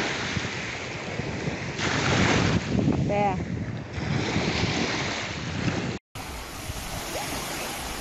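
Small waves washing and breaking on a sandy shore, with wind on the microphone. The sound cuts out for a moment about six seconds in, then the surf goes on.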